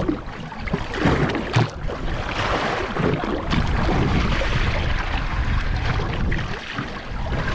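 Choppy sea slapping and splashing against the stern and hull of a small drifting boat, in irregular surges, with wind buffeting the microphone.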